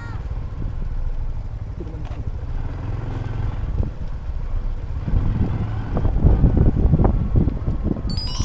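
Honda Cross Cub 110 being ridden: its small single-cylinder engine runs under a heavy, uneven rumble of wind on the microphone, which grows louder about five seconds in.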